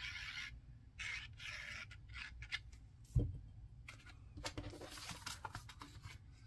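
Cardstock pieces rustling and rubbing as they are handled and pressed together by hand, in short strokes about a second apart, with a single light knock a little after three seconds in.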